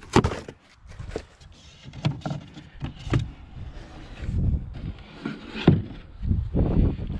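Cardboard packing being pulled and handled against a plastic kayak hull: irregular rustling, scraping and knocking, with several heavier thuds.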